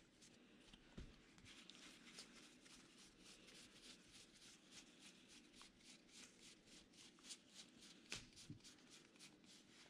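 Faint, quick flicks of Gypsy Queen baseball trading cards being slid one by one through the hands, several a second, with one sharper tick about eight seconds in.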